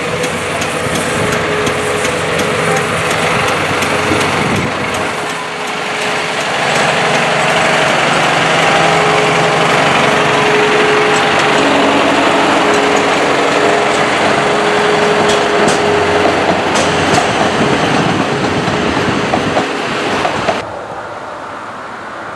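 15-inch-gauge diesel locomotive Douglas Ferreira running as it comes up and passes close by: a steady engine sound with a held whine and clicks from the wheels over the track. About 20 seconds in it cuts off abruptly to quieter wind noise.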